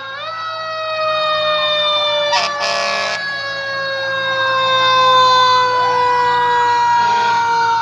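Fire engine siren winding up sharply at the start, then sliding slowly down in pitch as it winds down, over the low hum of the truck engines. A brief loud blast cuts in about two and a half seconds in, and a second siren rises and falls near the end.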